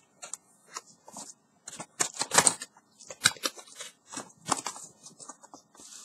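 Cardboard packaging being handled and opened: irregular scraping, rustling and knocking of card against card, loudest about two seconds in.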